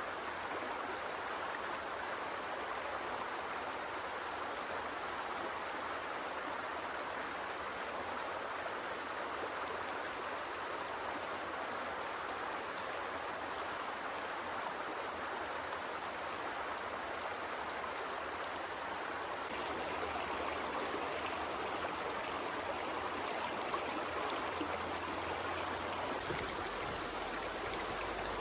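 Steady rushing of flowing water, an even hiss without any distinct drops or strokes, with the sound shifting a little brighter about two-thirds of the way through.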